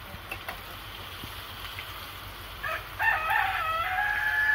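A rooster crows about three seconds in: a few short notes, then a long held final note.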